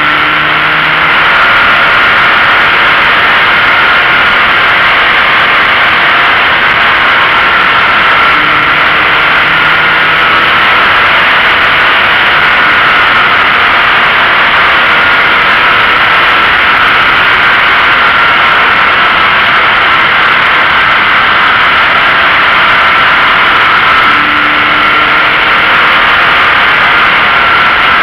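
Toyota GT86 driving at speed, heard from a camera mounted low on the outside of the car: steady, loud wind and tyre noise covers almost everything. The car's flat-four engine note comes through faintly, rising and falling a little with the throttle.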